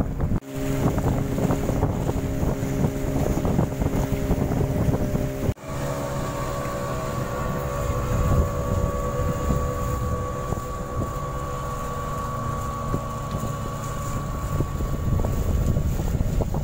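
Engine of a wooden outrigger boat running steadily under way, with wind buffeting the microphone and water rushing along the hull. The sound breaks off briefly twice, near the start and about five seconds in, and the engine tone changes after each break.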